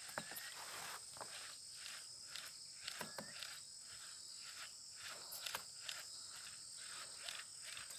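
Crickets and other insects chirring steadily in two high, unbroken tones, with scattered faint clicks.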